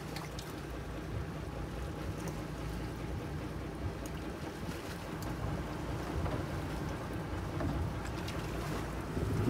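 Boat engine running steadily, a low even hum, with a few faint clicks of fishing gear being handled on deck.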